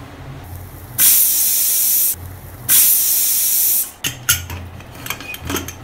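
Stovetop pressure cooker whistling twice: two loud bursts of hissing steam from the weighted valve, each about a second long, marking that the banana flower and dal are cooked. A few light knocks follow near the end.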